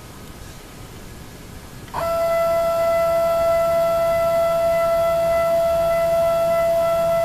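CNC mini mill's Z-axis stepper motor whining at one steady pitch as it drives the head down the column's ballscrew, starting suddenly about two seconds in.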